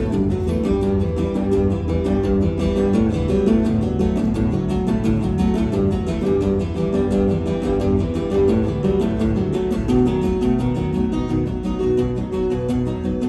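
Solo acoustic guitar played fingerstyle, live through a stage sound system: a fast, even run of notes over steady bass notes.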